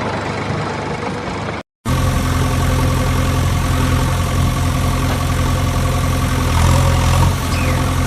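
A vehicle engine idling steadily. About two seconds in, an abrupt cut switches from a rougher, noisier engine sound to a smoother, steadier idle.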